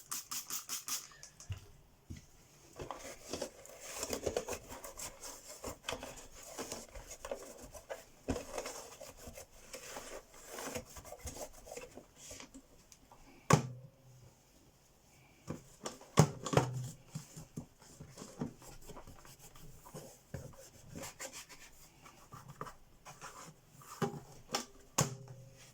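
Irregular rubbing and scrubbing strokes of hand-cleaning over the casing of a 1981 Electrolux Z355 vacuum cleaner, with a few sharp knocks, the loudest about halfway through.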